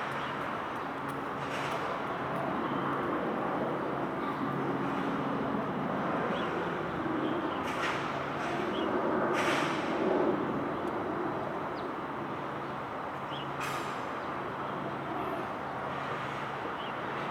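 Outdoor traffic ambience: a steady low engine hum with vehicles passing and a few short hisses, and faint bird chirps.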